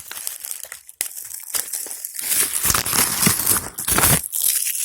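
Packaging crinkling and rustling as fireworks are handled and unpacked from a shipping box, loudest from about two seconds in until about four.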